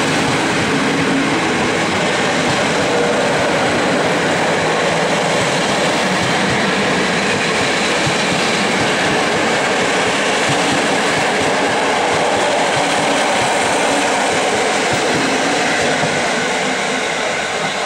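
Passenger coaches of a locomotive-hauled train rolling past close by, a steady loud rolling noise of wheels on the track that starts to fade near the end.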